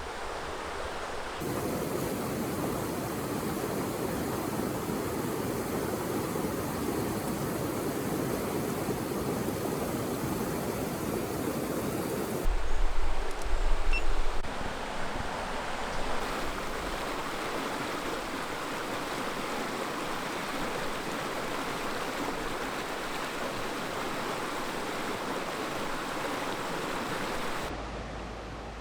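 Steady rushing of a rainforest stream or waterfall, heard in several spliced takes that shift abruptly in tone. About halfway through, a few seconds of louder low rumbling sit under the water.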